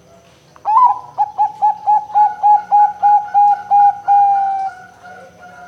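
Zebra dove (perkutut) cooing: an opening note about a second in, then a quick run of about a dozen short, evenly spaced notes, ending on one longer held note.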